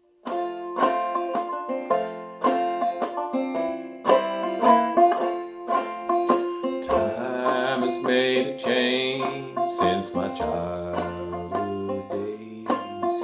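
Clawhammer banjo tuned fDGCD playing a solo instrumental lead-in: a steady run of plucked notes, with lower notes joining about halfway through.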